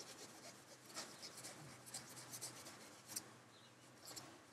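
Faint, intermittent rubbing and scratching of a soft cloth buffing polishing compound off a small clear plastic model canopy, over a low steady hum.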